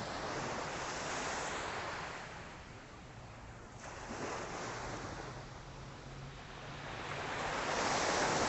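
Small, calm Atlantic Ocean waves breaking and washing up the beach. The wash swells and fades, with the biggest surge near the end.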